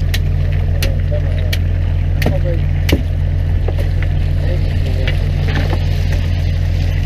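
Fishing boat's engine running steadily with a deep, even hum. Over it come sharp clicks about every 0.7 s through the first three seconds, and a few more later.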